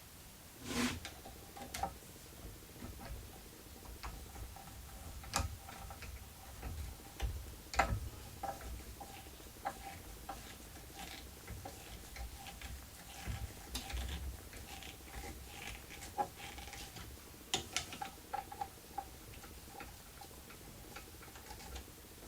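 Irregular small clicks, taps and knocks of metal parts and an Allen wrench being handled while a stepper motor is fitted to a DIY CNC router frame, with a firmer knock a little under a second in and another about eight seconds in.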